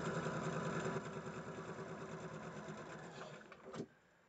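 Electric sewing machine stitching at speed with rapid needle strokes while chain-piecing fabric squares; it slows after about a second and stops near the end with a short, sharp click.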